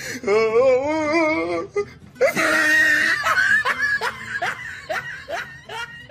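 A person laughing hard: a long wavering laugh, then a hoarse, wheezy burst and a run of short breathy laughs that fade toward the end.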